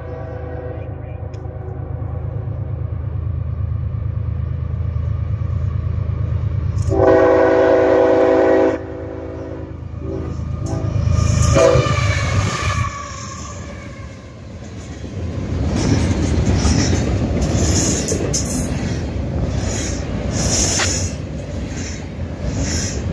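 CSX freight train led by a GE ES44AC-H diesel locomotive approaching with a steady engine rumble. Its horn sounds one loud blast about seven seconds in, cut off sharply after about two seconds. Over the second half the freight cars roll past with clicking wheels and rail noise.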